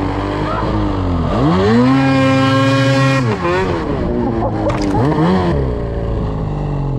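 Snowmobile engine revving up about a second in and holding a high, steady pitch for a couple of seconds, then easing off and rising and falling unevenly as the sled pulls away down a snowy trail.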